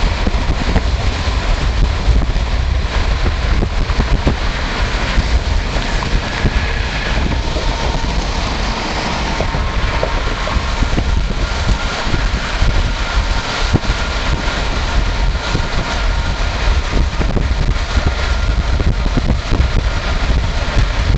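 Steady road noise from a car driving at highway speed: tyre and wind noise over a heavy low rumble.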